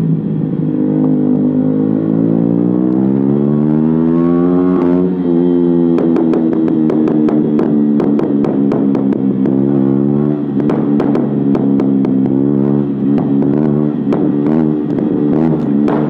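KTM Duke 125's single-cylinder four-stroke engine through a de-baffled Akrapovic exhaust, accelerating with a rising pitch for about five seconds. The throttle then closes, and from about six seconds in the exhaust gives rapid pops and crackles on the overrun.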